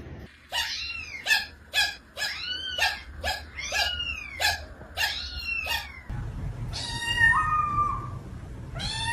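A cat giving a quick run of short, chirp-like calls, about two a second, each rising and then falling in pitch. About six seconds in, a cat's longer calls that rise in pitch come over a low rumble.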